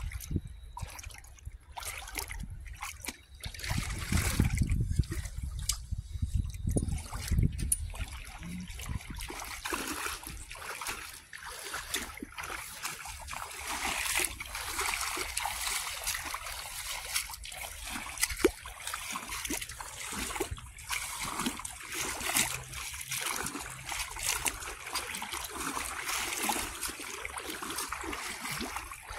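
Feet wading through shallow seawater, sloshing and splashing with each step, with a low rumble between about four and eight seconds in.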